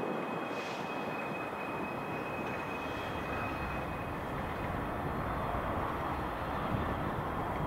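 Steady rumble of freight rolling stock in a busy rail yard, with a faint high steady whine that fades out about halfway through.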